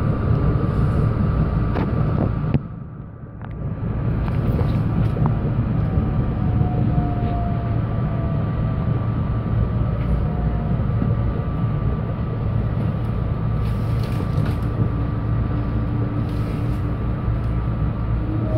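Electric commuter train heard from inside the passenger car: steady rumble of wheels on rail, with a faint whine that falls in pitch as the train slows into a station. The sound drops off sharply for about a second near the start.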